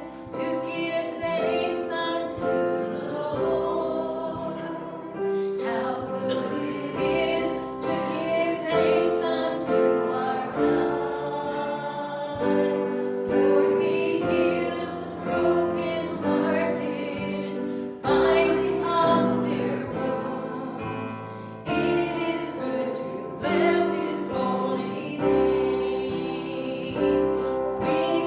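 Congregational hymn singing with instrumental accompaniment.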